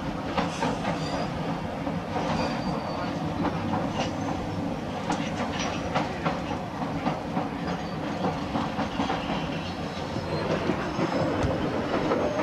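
Boston Orange Line rapid-transit train running on the steel elevated structure, heard from on board: a steady rumble with irregular clicks of the wheels passing over rail joints.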